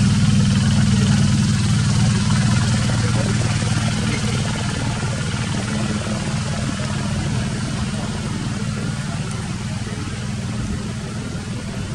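A motor engine running steadily with a low hum and a hiss over it, slowly getting quieter.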